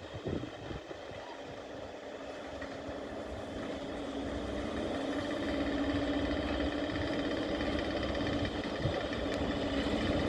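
SM42 "Stonka" diesel locomotive engine running with a steady hum, growing louder as the locomotive approaches.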